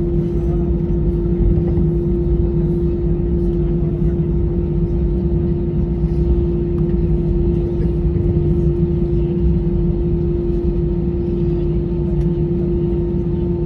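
Inside the cabin of an Airbus A320 taxiing: its CFM56 jet engines at idle, a steady hum with one strong steady tone over a low rumble.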